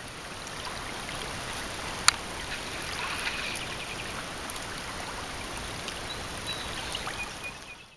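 Shallow river running over riffles, a steady rush of water that fades in and then out near the end. A single sharp click about two seconds in.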